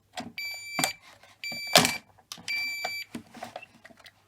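A homemade fire alarm's electronic sounder beeps three times, high-pitched, each beep about half a second long and about a second apart, stopping about three seconds in. Sharp clicks and knocks of a key being worked in the reset keyholes fall between the beeps; the loudest is a click just before the second beep ends.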